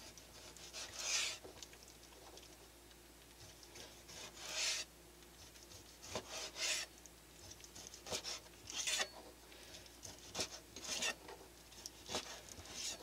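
Kitchen knife slicing a block of yellowfin tuna into sashimi on a cutting board: a series of faint, short scraping strokes as the blade is drawn through the flesh and across the board, about one every second.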